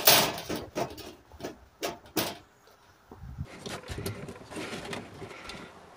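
Handling noise from a computer fan with metal mounting brackets: sharp knocks and clicks of metal on a metal sheet, the loudest at the very start and a few more over the next two seconds. After a short lull, quieter scraping and tapping as the fan is fitted into its frame in the wall.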